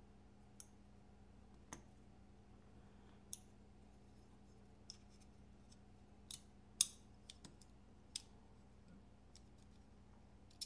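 Small, sharp metal clicks and ticks of folding-knife parts and tools being handled while fitting the pivot, about eight scattered over ten seconds, the loudest about seven seconds in. A faint steady hum runs underneath.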